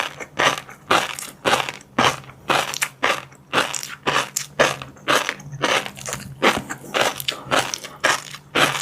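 Close-miked chewing of crunchy food, a crisp crunch about twice a second.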